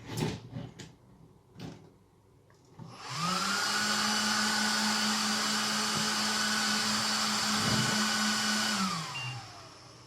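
A few clicks, then the Asus RS100E5-PI2 rack server's cooling fans spin up with a rising whine, run at high speed with a steady whirr for about six seconds, and wind down with a falling pitch near the end.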